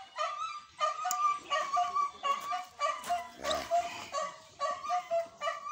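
An animal's short, high-pitched yelps, repeated about three times a second, with one lower, longer call a little past three seconds in.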